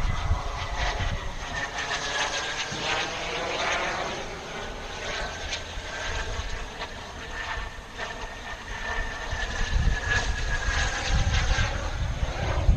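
Turbine engine of a radio-controlled model J-10 jet flying overhead: a high whine over a rushing jet noise, sliding gently down in pitch as the jet passes.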